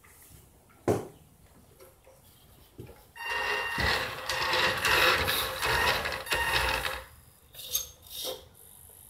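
Radio-controlled model car's electric motor and gears whirring as it drives on a laminate floor, from about three seconds in to about seven seconds in, then a few short spurts of throttle near the end. A single sharp click about a second in.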